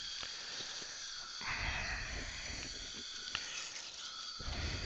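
Dental micro-suction tip hissing steadily as it draws air at the implant site, with a louder rush of suction about a second and a half in and again near the end.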